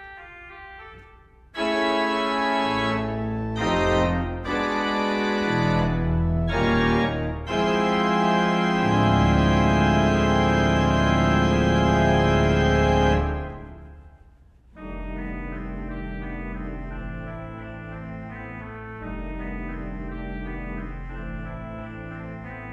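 Organ music: loud held chords come in a second or two in and build to a long sustained chord that cuts off a little past halfway. After a brief gap, a softer, gentler passage begins.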